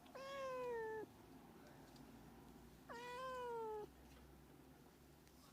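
Domestic cat meowing twice, two drawn-out meows about a second long each, a couple of seconds apart, each rising sharply at the start and then sliding slowly down in pitch.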